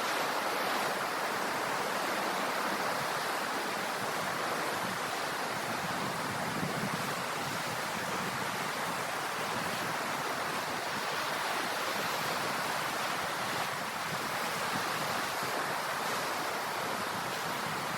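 Ocean surf: a steady, even wash of waves with no separate breakers standing out.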